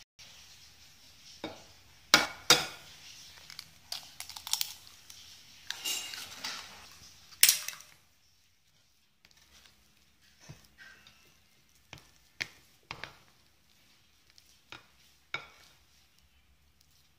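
Spatula clinking and scraping against a glass mixing bowl while stirring donut dough of flour and egg. Sharp knocks come thick in the first half, then fewer and fainter.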